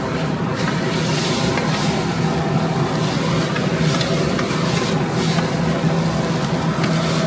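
Rice noodles sizzling on a flat iron griddle while metal spatulas scrape and toss them, over a constant low hum.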